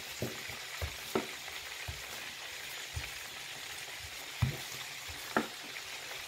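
Wooden rolling pin rolling out pizza dough on a counter, giving a few soft, irregular knocks over a steady hiss.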